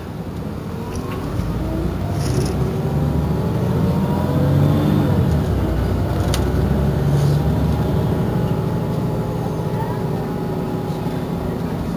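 Diesel engine of an Iveco Crossway bus running while the bus stands at a stop. Its note rises and grows louder over the first few seconds, then eases back to a steady run, with a few brief clicks and hisses on top.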